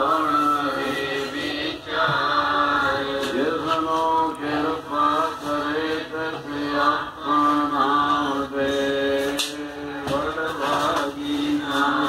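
Music: a voice singing a slow, chant-like song, the melody held and gliding between notes.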